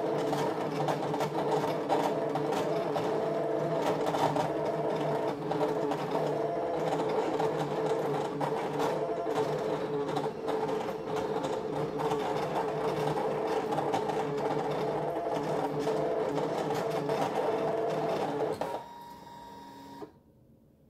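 Brother ScanNCut cutting machine cutting vinyl: its motors run with a steady, shifting hum as the blade carriage and cutting mat move back and forth. Near the end the cut finishes and the machine stops.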